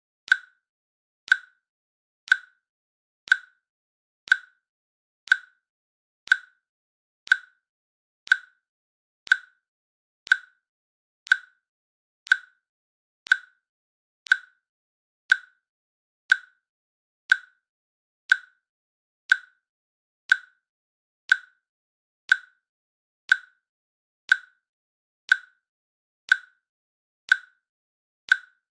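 Countdown timer's click sound, one short sharp click every second with silence between, ticking off the seconds of the countdown.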